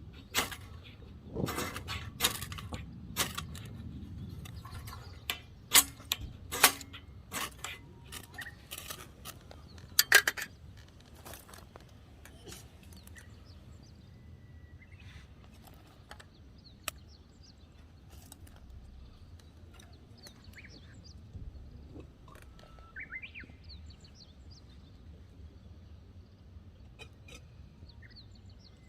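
A run of sharp clicks, clinks and snaps from about a dozen separate strikes, from handling fire-lighting gear and wood, during the first ten seconds or so. After that it settles to a quiet outdoor background with a few faint bird chirps.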